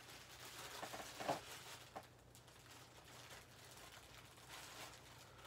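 Faint rustling and crinkling as a newly delivered T-shirt is unwrapped and handled, with a few sharper crinkles just over a second in.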